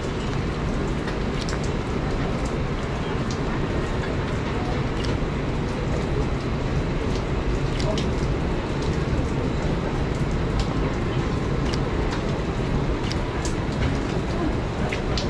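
Heavy rain: a deep, steady rushing noise with scattered sharp ticks of drops.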